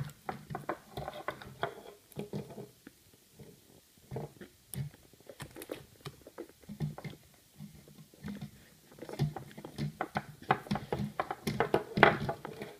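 Wet slime being peeled and picked off a plastic mesh grid by hand: irregular small sticky clicks and crackles, with soft rubbing between them.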